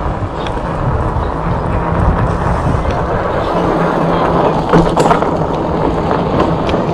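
Wind rushing over the microphone and tyre rumble on a concrete road from a moving e-bike, growing steadily louder, with a couple of faint knocks about five seconds in.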